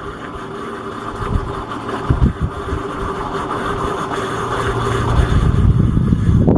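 A motor running steadily, with a low hum that grows louder over the last few seconds.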